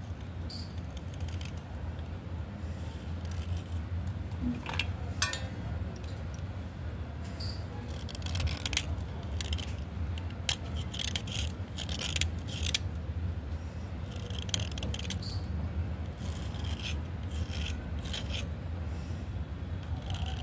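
A small metal blade scraping and shaving a wet clay slate pencil, in irregular runs of short scraping strokes that come thickest in the middle.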